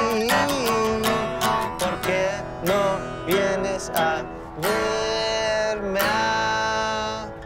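Acoustic guitar strummed in a steady pattern, with a held melody line over it that slides up and down between notes. It fades down near the end.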